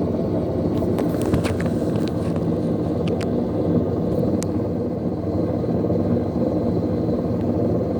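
Kenmore Elite Oasis high-efficiency top-load washing machine running, a steady motor hum, with a few light clicks in the first half.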